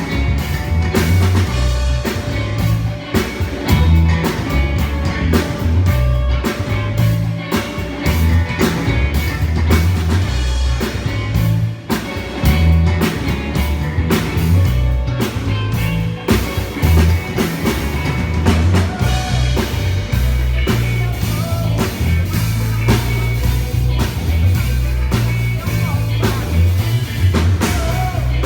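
Band playing rock music at a sound check: drum kit with a steady beat, guitar, and a moving bass line.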